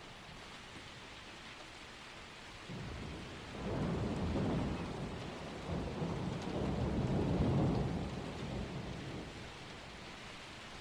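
Steady hiss of rain, with a long rumble of thunder that swells about three seconds in and dies away near the end.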